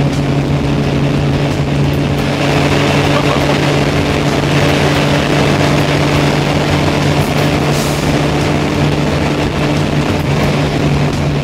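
Toyota MR2's swapped-in V6 engine running under load at over 200 km/h, heard from inside the cabin: a steady engine drone under heavy wind and road noise as the car slowly gains speed.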